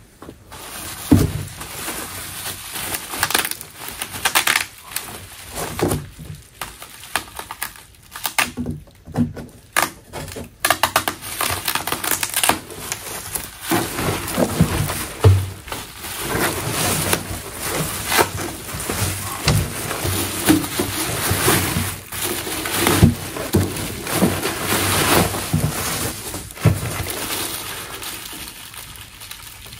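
Bubble wrap and plastic packaging crinkling and rustling as a snare drum is worked up out of its cardboard box, with a few dull knocks along the way.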